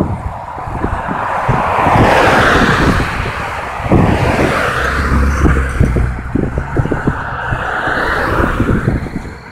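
Cars passing close by on a road: two swells of tyre and engine noise, one about two seconds in and another from about six to eight seconds, over irregular low buffeting.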